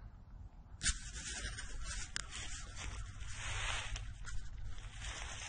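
Rustling and rubbing noise that starts suddenly with a click about a second in and carries on steadily, crackling here and there.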